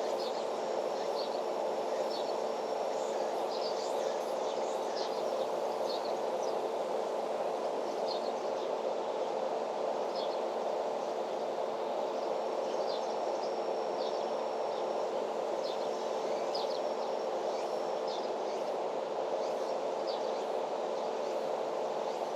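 Outdoor farm ambience: a steady hum with a constant tone in it, and short high bird chirps scattered throughout.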